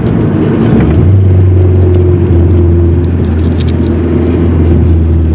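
Car engine and road noise while driving, heard from inside the car: a steady low drone that grows stronger about a second in and then holds.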